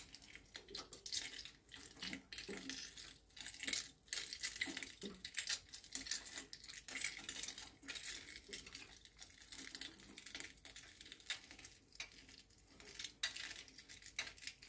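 Sausage stuffer pushing seasoned pork and cabbage filling through its filling tube into casing: quiet, irregular wet squelching and small crackles as the casing fills and slides off the tube under the hand, with a few soft thuds.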